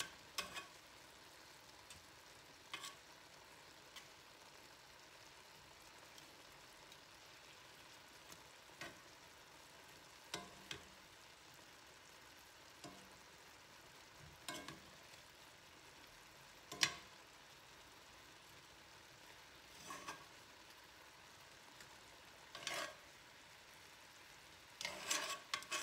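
Steak, bell peppers and onions sizzling faintly in a cast-iron skillet. Now and then metal tongs click and scrape against the pan, about a dozen short knocks in all, the loudest about two-thirds of the way through and several close together near the end.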